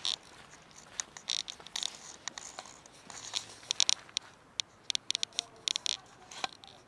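Thin plastic food tray crinkling and clicking on gravel as cats feed from it, in irregular quick crackles that bunch together in the second half.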